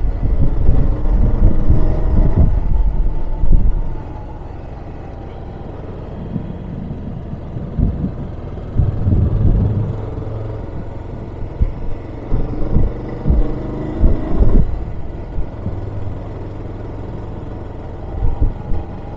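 Motorcycle engine running on an uphill road with hairpin bends, mixed with wind rumbling on a helmet-mounted microphone. Loud for the first few seconds, then it drops about four seconds in, with gusty surges after that.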